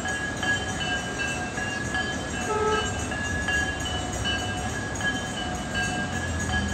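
Temple bells rung over and over for the evening aarti, their ringing tones breaking off and starting again without pause, over the murmur of a large crowd.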